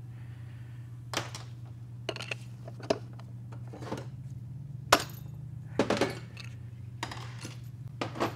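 Steel transmission internals clinking and knocking as the planetary gear set and related parts are lifted out of a TH350 case by hand. Scattered separate knocks come one to two seconds apart, the sharpest about five seconds in, over a steady low hum.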